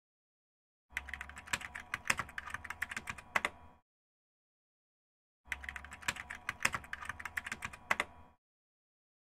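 Computer keyboard typing sound effect: two runs of rapid key clicks, each about three seconds long, with dead silence between them.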